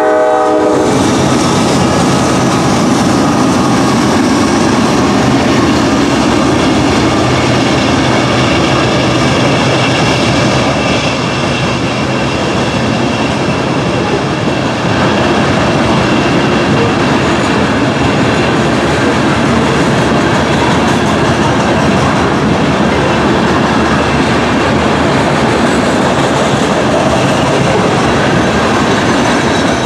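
Freight train passing close by: a train horn cuts off right at the start, then the trailing GE diesel locomotives rumble past, followed by covered hopper cars rolling by. Their steel wheels clatter steadily on the rails.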